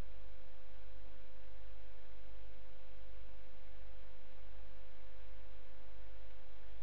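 Steady electrical hum from the recording setup: a low hum with a thin, unchanging tone above it. No clicks or other events.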